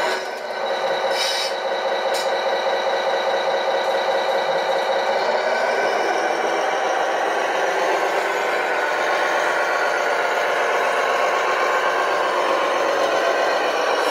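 Tamiya Globe Liner 6x6 RC truck running, a steady mechanical whirr with a clear whining pitch that shifts a little about six seconds in.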